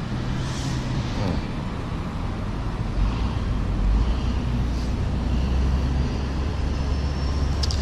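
Low, steady rumble of a distant engine, growing a little stronger about three seconds in.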